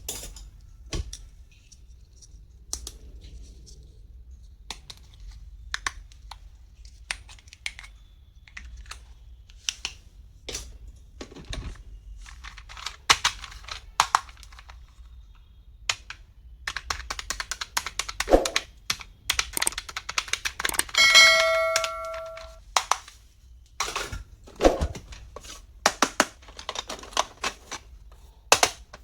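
Plastic stationery and packaging being handled and unboxed: irregular sharp clicks, taps and rustling. About two-thirds of the way through, a steady chime-like tone sounds for about a second and a half.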